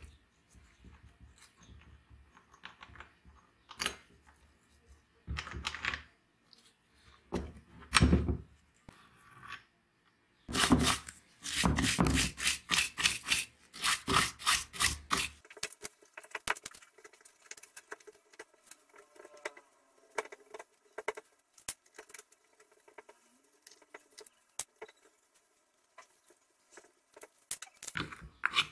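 Metal chainsaw parts handled, with clicks and clunks, then a short wire brush scrubbed hard across the rusty chainsaw crankcase in quick strokes for about five seconds, followed by faint small ticks of parts being worked and a knock or two near the end.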